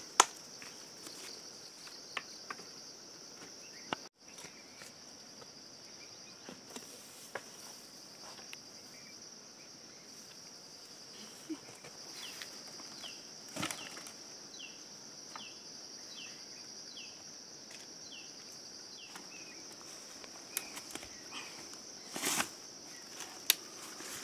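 Insects keep up a steady high buzz while dry firewood sticks are handled and stacked into a bamboo basket, giving scattered sharp knocks and clicks. In the middle a quick run of about ten short falling chirps sounds.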